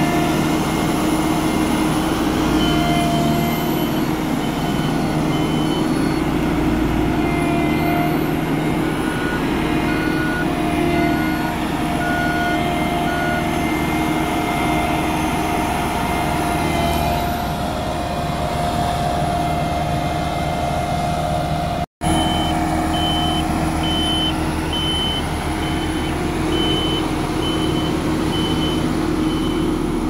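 Diesel engine of a BOMAG BW 211D-40 single-drum roller running steadily as it works over loose soil. A reversing alarm sounds in runs of even beeps. The sound drops out for an instant about two-thirds of the way through.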